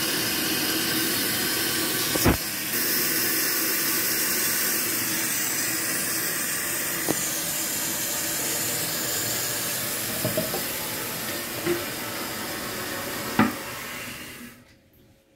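Fill valve of a 1973 Gerber Mt. Vernon toilet hissing steadily as water refills the tank, then shutting off suddenly near the end as the tank reaches its full level. A few light knocks sound over the hiss.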